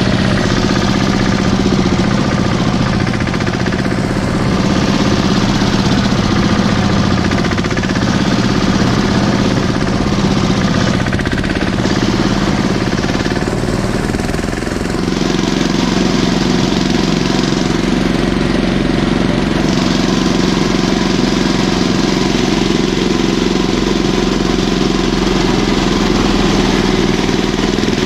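Mini tractor engine running steadily under way with a fast, rattling beat. The engine note changes about halfway through.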